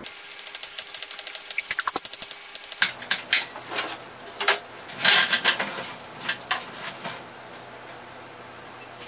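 A steel scissor-lift cart rattling with rapid, even clicking as it is rolled along, then irregular metal clunks and knocks as the lift is raised and a heavy metal machine part is shifted on its top, the loudest knock about five seconds in.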